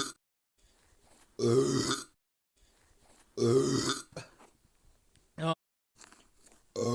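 A person burping loudly over and over, low-pitched burps each under a second long, coming about every two seconds, with a short one between the third and the last.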